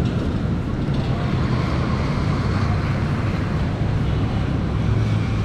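Road traffic: vehicle engines running close by, a steady low rumble with general street noise.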